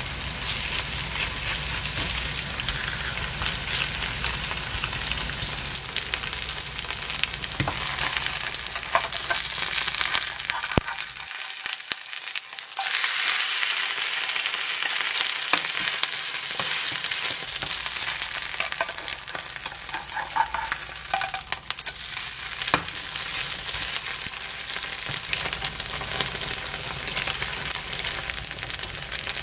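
Cabbage okonomiyaki batter sizzling in hot oil in a frying pan, stirred and pressed with a spatula; a few sharp ticks of the spatula against the pan.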